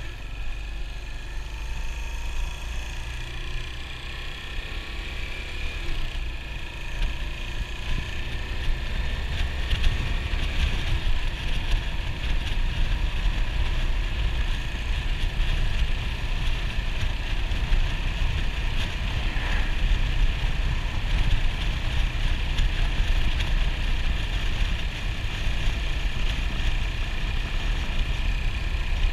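Yamaha SR400's air-cooled single-cylinder four-stroke engine running steadily under way, mixed with wind and road noise. The level builds over the first ten seconds or so.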